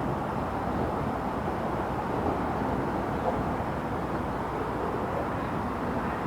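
Steady low outdoor background rumble, with no horn, bell or passing train standing out.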